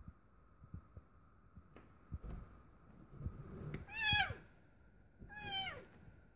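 Calico mother cat in labour meowing twice, each meow falling in pitch, the second softer, after a few faint knocks against the cardboard box.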